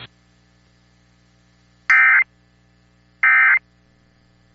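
EAS end-of-message code: short, loud, warbling two-tone SAME data bursts about a second and a third apart. Two are complete and a third begins right at the end, signalling that the alert is over, over a faint steady hum.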